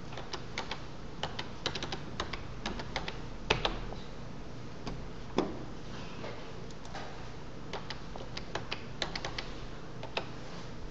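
Typing on a computer keyboard: irregular key clicks, with two louder knocks about three and a half and five and a half seconds in.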